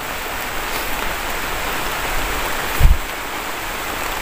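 Heavy rain falling steadily, an even hiss. One dull low thump nearly three seconds in.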